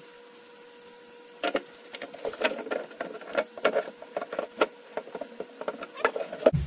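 Pipe wrench clicking and knocking against a threaded plastic tank-adapter fitting and the plastic drum as the fitting is turned tight to seal it against leaks. The irregular clicks start about a second and a half in, over a faint steady hum.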